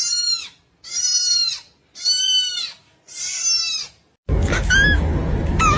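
Kitten mewing: four drawn-out, high-pitched mews about a second apart, then, after a sudden switch to a noisier background with a low hum, two short high mews.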